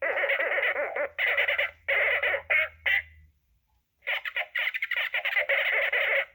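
Droid Depot astromech droid's speaker playing orange personality chip sound effects: electronic beeping and warbling chatter. It comes in several short bursts, pauses for about a second, then runs as one longer burst near the end.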